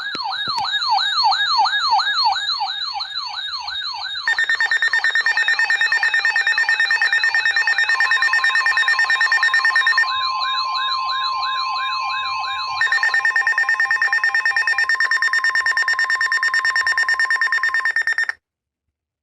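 Emergency alert tones sounding over one another: a fast siren-like warble, joined about four seconds in by steady, rapidly pulsing beeps. All of it cuts off suddenly near the end. The alert announces a tornado warning.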